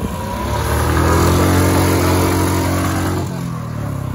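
Motorcycle engine revved hard and held high while the rear wheel spins in loose dirt in a burnout. The revs build over the first second and drop back a little past three seconds in.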